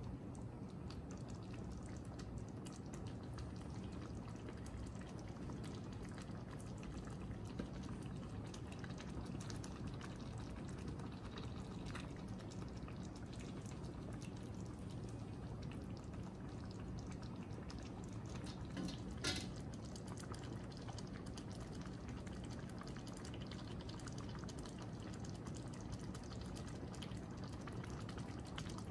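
Thick tomato and beef sauce with spaghetti simmering in a pot, with small bubbles popping and gurgling. A single sharper click comes about two-thirds of the way through.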